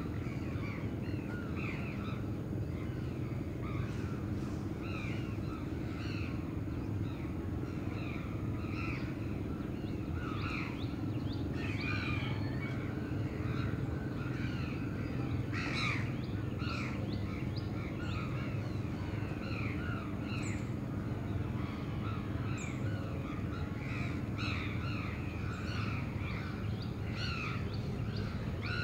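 A flock of crows cawing over one another, calls coming several a second without a break, over a steady low hum of city traffic.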